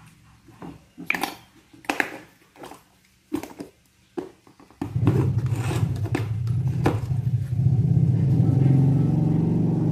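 Sharp clicks and taps from the yellow plastic lid of a milk powder tin as it is handled and snapped open. About five seconds in, a motor vehicle's engine rumble starts suddenly and grows louder, and it drowns out the clicks.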